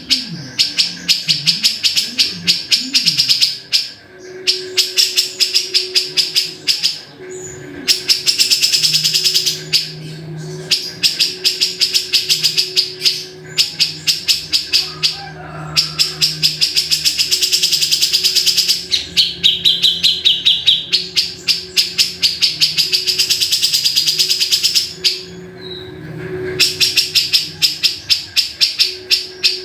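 Cucak jenggot (grey-cheeked bulbul) calling in long runs of rapid, sharp repeated notes. The runs break off in short pauses every few seconds.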